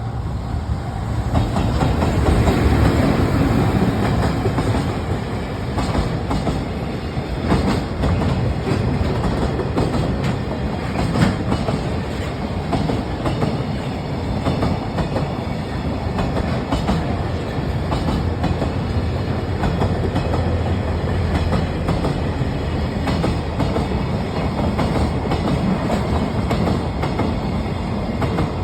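Freight train rolling past at close range, its wheels clacking steadily over the rail joints as the wagons go by.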